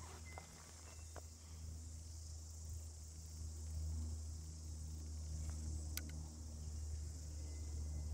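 Insects chirring steadily in the bush, over a low steady hum, with a few faint clicks.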